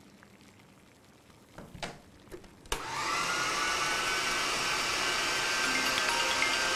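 Electric food processor motor switched on about two and a half seconds in, then running with a steady whine as it chops red onion. A few light knocks come before it starts.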